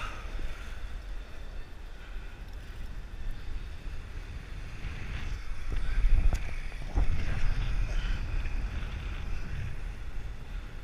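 Wind buffeting a worn action camera's microphone as a bungee jumper swings and rebounds on the cord: a low rumbling rush that swells into louder gusts about six and seven seconds in.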